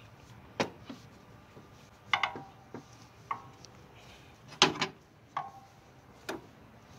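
Metal parts clinking and knocking as a new engine mount is worked into its bracket by hand. There are about eight irregular sharp knocks, several with a short metallic ring, and the loudest comes about two-thirds of the way through.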